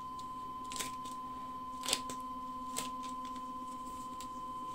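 Anycubic Wash & Cure station running its curing cycle: a steady high whine from the rotating turntable, with a few faint clicks about a second apart.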